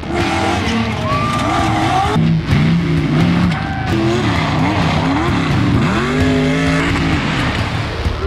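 Rock bouncer buggy engines revving hard, the pitch swooping up and down again and again as the throttle is worked on a dirt hill climb.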